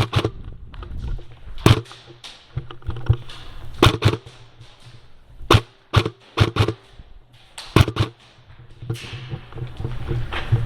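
Airsoft guns firing single sharp shots at irregular intervals, with a quick run of about five shots around six to seven seconds in.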